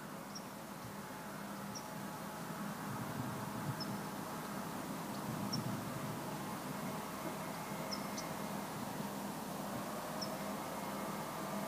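Faint steady background hiss and low hum, with small high chirps every second or two.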